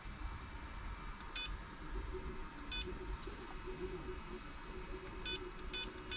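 Short electronic button beeps from an ISDT FD-200 battery discharger as it is woken up and its settings are dialled in: one beep, another a second and a half later, then three in quick succession near the end.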